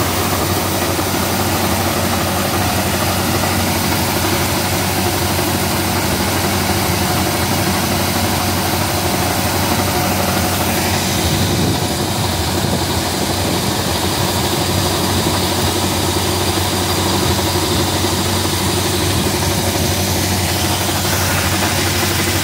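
Banglamark maize combine harvester running steadily under load, its engine and threshing machinery going while shelled maize kernels pour from the unloading spout. Steady, even machine noise with no break.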